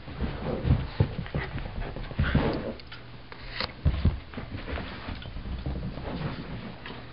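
Two miniature Australian Shepherds playing rough: scuffling, with irregular thumps, the loudest about a second in and again near the middle.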